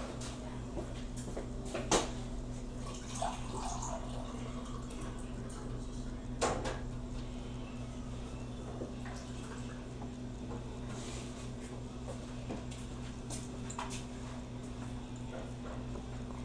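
Faint water running as a drinking glass is filled, over a steady low hum, with a few light knocks.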